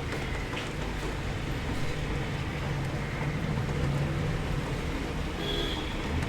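Rain heard from indoors: a steady, even hiss with a heavy low rumble and scattered light ticks, plus a brief faint high tone about five and a half seconds in.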